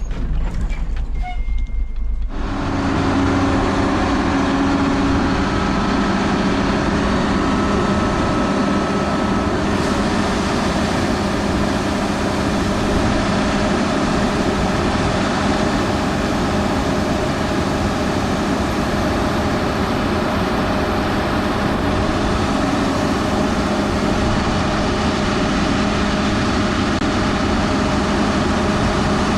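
Grain truck driving, steady engine and road noise. It starts abruptly about two seconds in.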